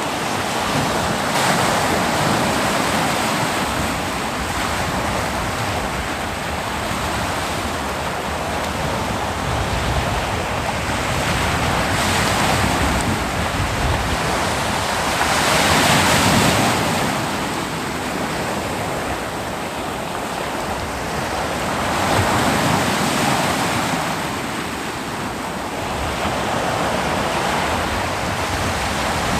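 Ocean waves breaking on a beach: a continuous surf roar with several waves swelling louder and washing in, the biggest about halfway through, with some wind noise on the microphone.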